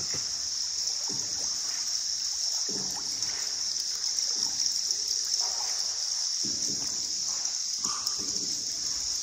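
Water splashing and trickling in irregular strokes every second or so, as from paddles working a small boat on the river, over a steady high-pitched hiss.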